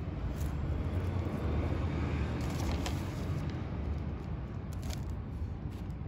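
City road traffic: a steady low rumble with a vehicle passing, swelling about a second or two in and fading after, and a few light clicks over it.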